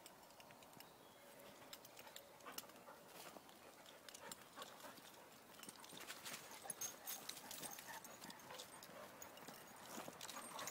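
Faint crunching of footsteps and dogs' paws on dry leaves and a dirt path: scattered small clicks and crackles that grow busier about halfway through.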